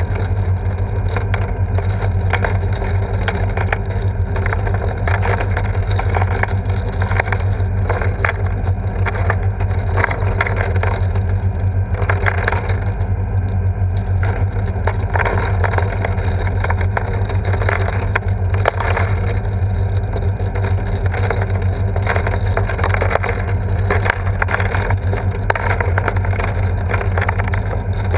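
Steady low machine hum from the motor driving the kinetic self-assembly sculpture, with a continuous scatter of small knocks and rattles as the red-and-blue balls tumble and clump together in the bowl.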